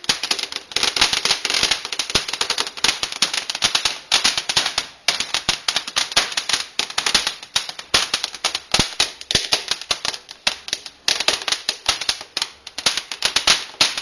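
Small ground fireworks crackling as they spray sparks: a dense, irregular run of sharp snaps and pops, with a couple of brief lulls.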